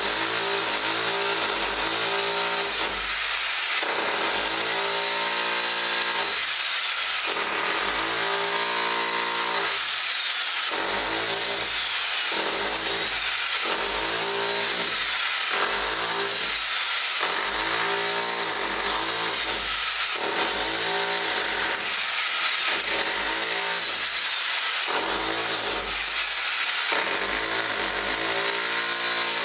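Electric rotary hammer with a pointed chisel bit hammering into a concrete wall, chipping the concrete away. It runs continuously and loudly, and its sound breaks up and changes every second or two as the bit works against the concrete.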